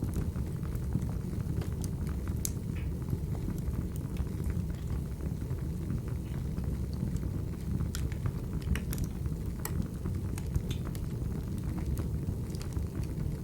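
Wood fire burning in a fireplace: a steady low rushing noise with scattered sharp crackles and pops.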